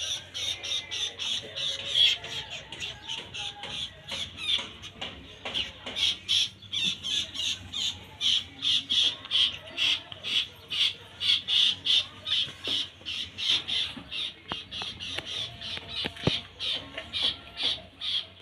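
A kapasan (triller) bird calling over and over, short sharp notes at about two to three a second without pause.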